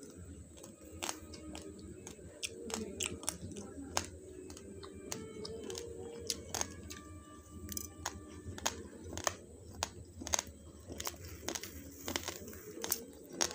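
Dry raw basmati rice grains crunched between the teeth: a run of sharp, irregular cracks, several a second, over faint background music.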